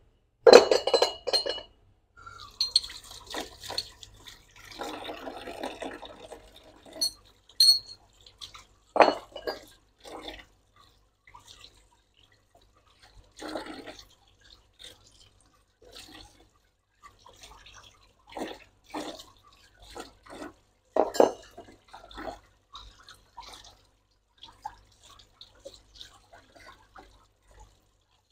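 Aluminium motorcycle footrest brackets being washed by hand in a basin of water under a running tap, with irregular splashing and sloshing. The metal parts clink against each other at the start. This is the alkaline-soap wash of the parts ahead of chrome plating.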